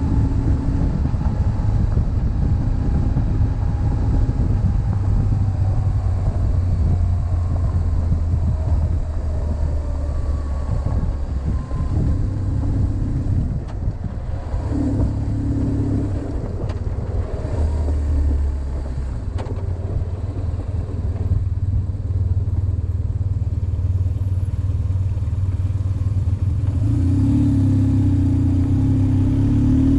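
BMW GS motorcycle's boxer-twin engine running on the road, its note rising and falling several times with the throttle.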